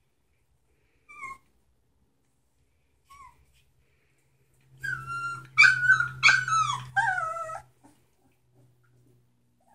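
Three-week-old Samoyed puppies crying while play-biting each other: two brief, faint whines, then from about five seconds in nearly three seconds of loud, high-pitched puppy cries and yelps, the last one sliding down in pitch.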